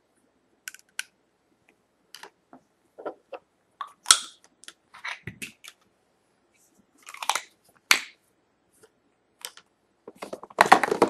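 Small plastic clicks and crinkling rustles from handling a capped syringe and the packaging of an injection needle. A sharp click comes about four seconds in, with louder crinkling around seven to eight seconds in and again near the end.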